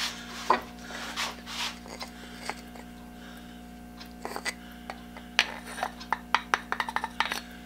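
Light clicks and knocks of turned wooden saw handles being handled and tapped together at a metal lathe, coming thick and fast near the end, over a steady low hum.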